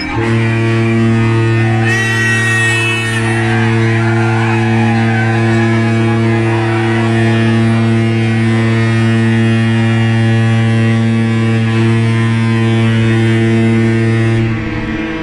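Ship's horn sounding one long, loud, steady low blast of about fourteen seconds, starting abruptly and cutting off near the end.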